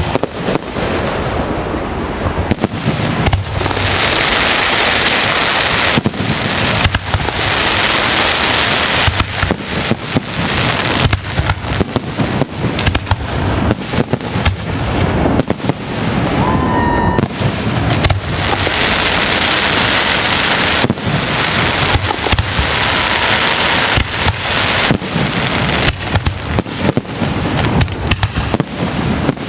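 Fireworks display: a dense run of booms and bangs with long stretches of crackling, and a short whistle about halfway through.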